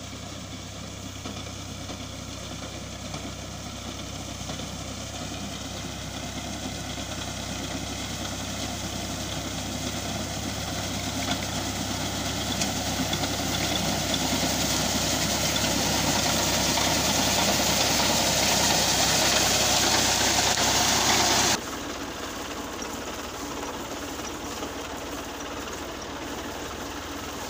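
Al-Ghazi tractor engine running steadily as it drives a front-mounted reaper through standing wheat, growing steadily louder as it comes closer. About three-quarters of the way in the sound cuts off abruptly to a quieter, steady engine sound.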